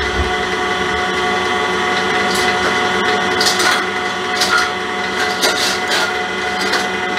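Electric stand mixer running steadily, its whisk beating cream in a stainless steel bowl that is almost whipped. From about two seconds in, a string of sharp clicks and clatters sounds over the motor.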